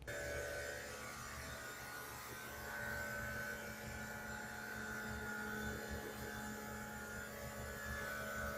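Steady machinery hum from steam-boiler plant equipment, with a wavering higher whine over it.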